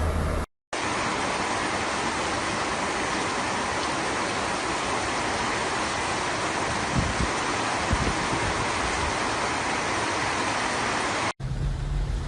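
Steady rushing water noise of a rainstorm flash flood, starting after a brief gap about half a second in and cutting off abruptly near the end.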